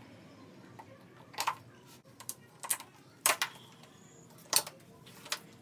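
Sharp plastic clicks and snaps, about six scattered irregularly over a few seconds, as wiring-harness clips and connectors on a bare car dashboard frame are handled and pulled free.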